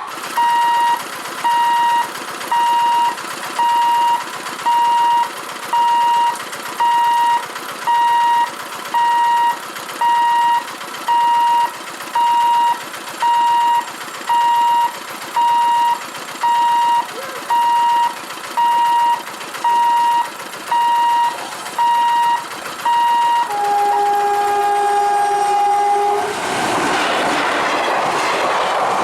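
An electronic warning beeper at a railway level crossing sounds one high note about once a second for over twenty seconds, over a steady background hiss. It then stops and a train's two-note horn blows for about two and a half seconds. Near the end comes the loud rush and clatter of the train passing the crossing.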